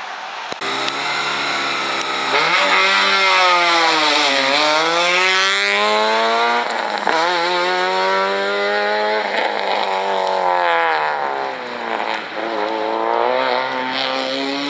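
Rally car engine at full throttle, its note climbing and dropping sharply near the middle as the driver changes gear. It falls away a few seconds later as the car lifts off, then climbs again as it accelerates away.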